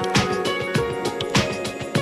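Upbeat background music with a steady drum beat and melodic notes.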